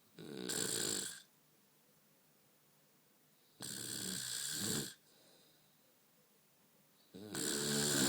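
A woman snoring, three long buzzing snores about three and a half seconds apart, each about a second long.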